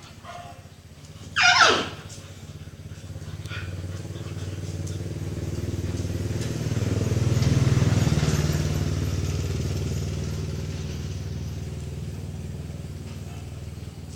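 A motor vehicle, most likely a motorcycle, passing: its engine drone swells to its loudest about halfway and then slowly fades. About a second and a half in there is a brief, loud, high cry that falls in pitch.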